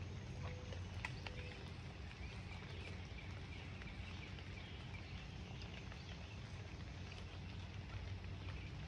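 Faint lakeside ambience: a steady low hum with faint animal calls high up, and a few light clicks in the first second and a half.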